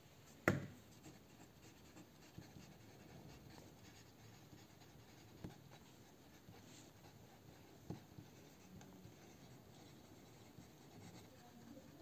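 Pen writing on paper note cards on a desk, with faint scratching strokes. A sharp tap about half a second in is the loudest sound, and a few softer taps follow later.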